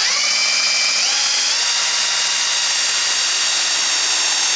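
Electric drill with a 3 mm bit drilling a screw hole in timber: a steady motor whine that steps up in pitch twice in the first second or so as it speeds up, then holds at full speed, easing down near the end.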